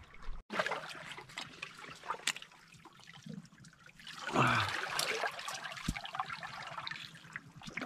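Seawater trickling and lapping among shore rocks, with a few sharp clicks as a spiny sea urchin's shell is cracked open by hand.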